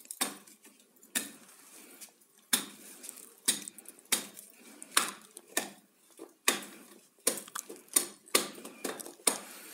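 Electric immersion water-heater rod tapped lightly and repeatedly against a stone tile floor: a dozen or more sharp, clattering knocks at an uneven pace of about one to two a second. Each knock breaks hardened white limescale off the heating coil, scale that brief heating has loosened.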